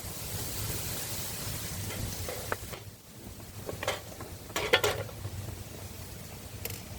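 Food sizzling in a pan, a steady hiss that cuts off about three seconds in, followed by a few light clinks and clatters of cookware.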